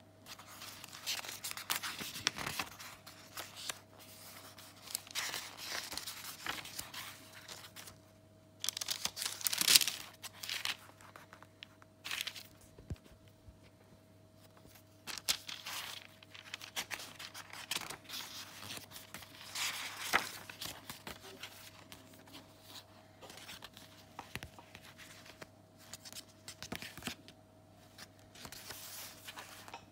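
Paper pages of a handmade junk journal being turned and handled: irregular rustling and crinkling, loudest about ten seconds in.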